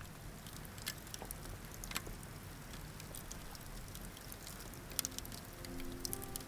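Wood campfire burning over glowing embers, crackling with scattered sharp snaps over a low steady rumble. Soft music comes in near the end.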